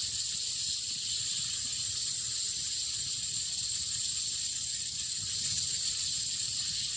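Meat and hotdogs sizzling on a tabletop grill plate: a steady, even hiss.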